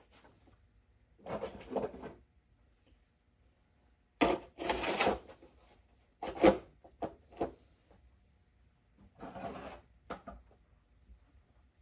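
Objects being handled and set down: a string of short scrapes and rubs with a few knocks in between, the sharpest knock about six and a half seconds in.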